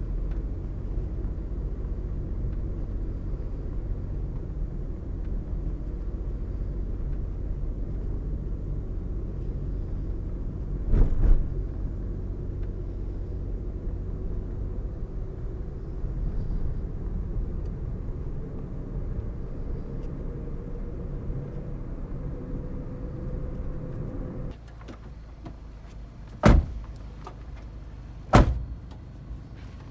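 Car running with a steady low rumble and a single thump about a third of the way in. About three-quarters through, the rumble cuts off suddenly, and two sharp knocks follow a couple of seconds apart.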